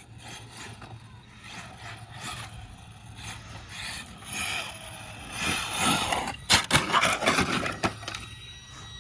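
Arrma Mojave 6S RC truck running on dirt: rough tire-and-motor noise with scraping grit, building to a string of loud, sharp surges a little past halfway, then falling away near the end.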